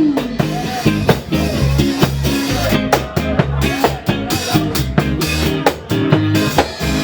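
Live ska band playing an instrumental passage, with a drum kit keeping a steady beat under bass and guitar.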